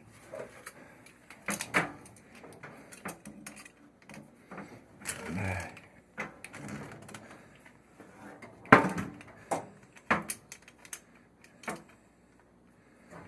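Scattered clicks and knocks of brass plumbing fittings being handled and fitted together by hand, the sharpest knock about nine seconds in.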